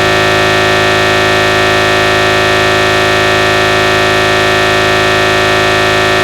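A dense wall of many synthesized MIDI notes sounding at once, rendered through a General MIDI soundfont in black-MIDI style: a loud, steady held cluster with no rhythm.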